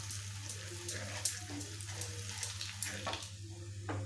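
Ground spices frying in hot mustard oil in a kadhai, with a steady sizzle full of small crackles, while a wooden spatula stirs them through the oil. A steady low hum runs underneath.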